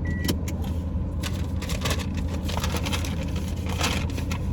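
Steady low hum of a car engine heard from inside the cabin, with scattered crackles and rustles throughout. A brief high beep sounds at the very start.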